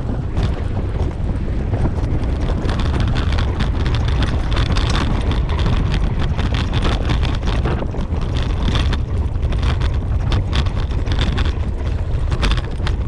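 Wind buffeting the microphone of a camera on a dog-drawn dryland rig as a team of Siberian huskies pulls it over rough grass. Throughout, the rig rattles and knocks irregularly over the bumps.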